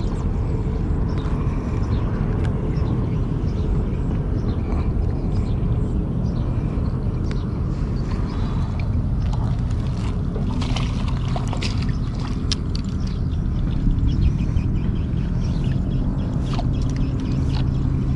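Steady low rumble, with scattered small clicks and rustles from handling a fish and tackle, most of them around the middle of the stretch.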